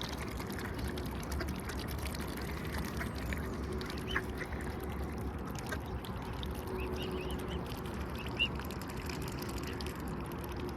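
Ducks calling with scattered short quacks while being fed.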